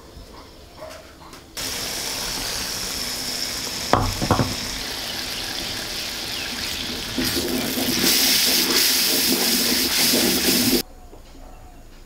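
Tomato gravy sizzling and bubbling hard in a pan as raw eggs are slipped into it, with a couple of sharp knocks about four seconds in. The sizzle cuts in suddenly, gets louder past the middle and stops abruptly near the end.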